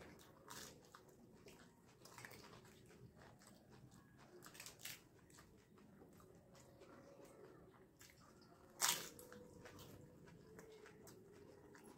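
Faint close-up eating: crisp dahi puchka shells, filled with yogurt, cracking as they are bitten, followed by wet chewing. One sharper, louder crack comes about nine seconds in.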